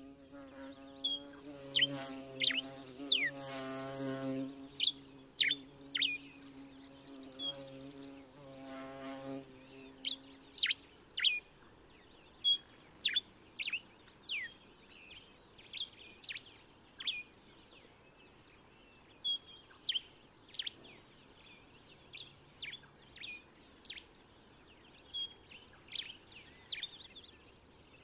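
Common diuca finch singing: short, sharp chirping notes that sweep down in pitch, repeated again and again. A low buzzing hum sits underneath for the first third and stops about ten seconds in.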